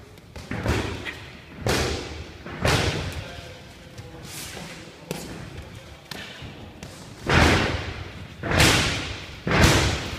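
Boxing gloves thudding as punches land during sparring, about eight hits spaced a second or so apart, the loudest three near the end. Each hit echoes in a large hall.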